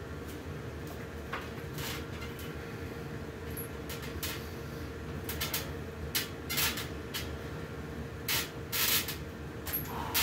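Short, irregular hissing bursts of breath and movement as a man pulls himself up and hangs on a metal pull-up station, the strongest in the second half, over a steady low hum in the room.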